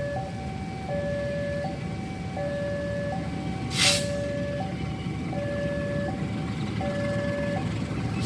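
Railway level-crossing warning alarm sounding its alternating two-tone signal, a low tone and a higher tone taking turns about every three-quarters of a second, over a steady low rumble. A brief loud hiss cuts in about four seconds in.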